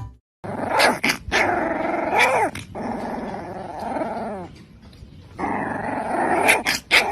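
A dog growling in long, rough grumbles, in two stretches with a short lull in the middle, the pitch bending downward at the end of each.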